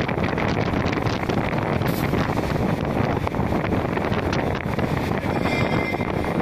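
Steady, loud factory machinery din around EVA sole molding presses: a dense rushing noise with no clear pitch and a few faint ticks.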